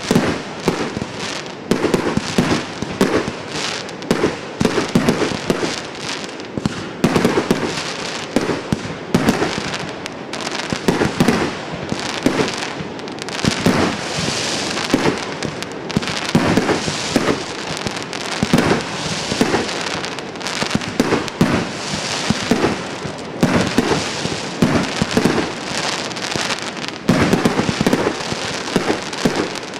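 "Golf Club" multi-shot firework going off in a rapid, continuous barrage: bangs several a second, mixed with crackling bursts.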